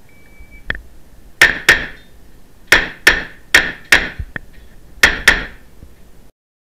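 A shot timer's short electronic start beep, then eight 9mm shots from a Beretta CX4 Storm pistol-caliber carbine, fired as four quick pairs, two on each target.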